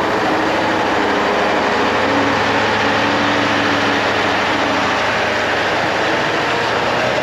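Kirovets K-742 tractor's diesel engine running steadily under load while pulling a cultivator through wet ground.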